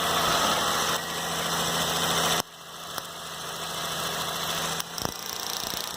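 Toyota car engine idling steadily. About two and a half seconds in, the sound drops off sharply, then returns quieter with a few faint ticks.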